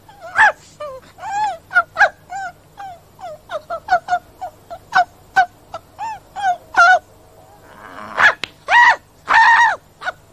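A small dog yapping: a rapid run of short, high barks, then after a brief pause a few louder, longer barks near the end.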